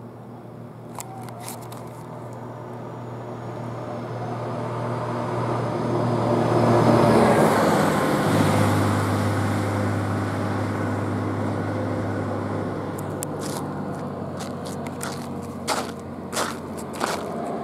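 A medium box truck approaching along the road, passing close by and driving away: its engine grows louder, drops in pitch as it goes past and slowly fades. A few sharp clicks come near the end.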